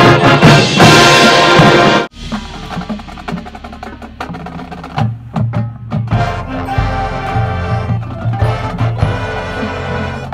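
Marching band playing: loud full-band music that cuts off abruptly about two seconds in, giving way to a quieter passage of light percussion over steady low notes.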